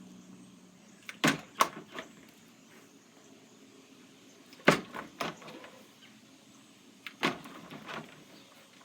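Water balloons being taken out of a washing machine and tossed in: a handful of separate knocks and thuds, two close together about a second in, another near five seconds in and one more near seven seconds.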